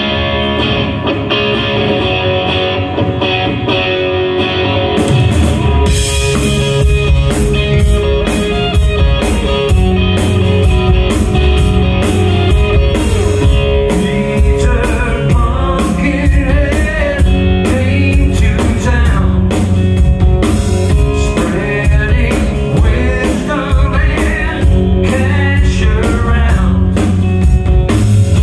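Live rock band playing: an electric guitar intro, joined about five seconds in by drum kit and bass guitar with a steady beat, and a man singing lead from about halfway through.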